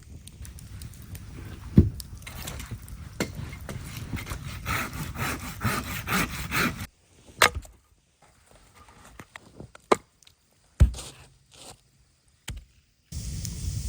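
Wooden cracking and knocking: a dense run of crackling for the first half, then a few sharp, separate cracks with near-silent gaps between them.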